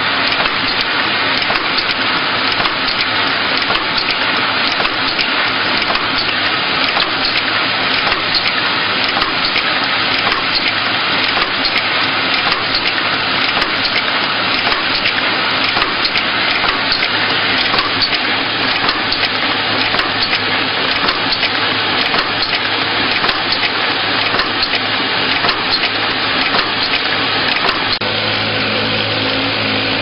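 Automatic eye drop filling, plugging and capping machine running: a steady dense clatter of many small clicks over a motor hum. The hum grows stronger near the end.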